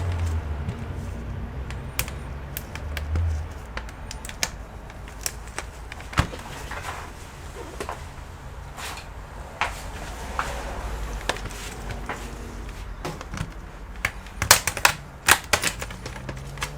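Scattered clicks and taps of tools and fingers on the plastic case of a Dell Inspiron 3157 laptop being taken apart, with a quick run of louder clicks near the end.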